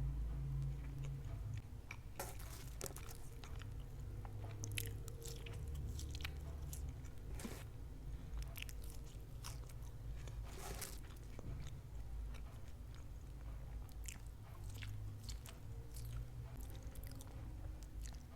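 Close-miked eating: biting and chewing crunchy food, with sharp crisp crunches at irregular intervals over a low, soft chewing sound.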